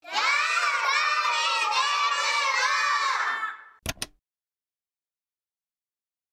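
A group of children's voices shouting and cheering together for about three and a half seconds, followed just before four seconds in by two quick clicks.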